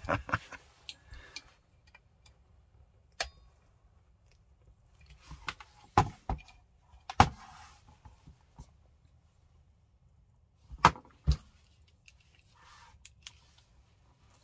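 Scattered clicks and knocks from a Wolverine MTW airsoft rifle and its lower receiver being handled and turned over, with a few louder knocks about six, seven and eleven seconds in.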